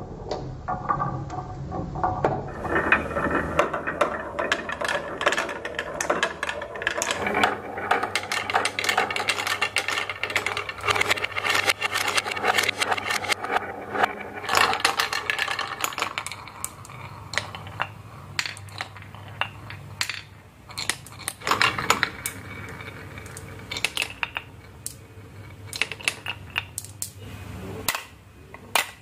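Marbles rolling and clattering down a wooden marble run: a steady rolling rattle full of rapid clicks and clacks. The rattle is thick through the first half, then thins to scattered, sharper knocks.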